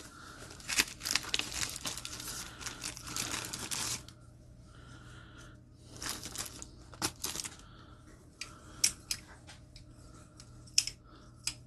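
Plastic packaging bag crinkling and tearing as it is pulled open, dense for about four seconds, then scattered light clicks and short rustles as the butterfly knife and packing are handled.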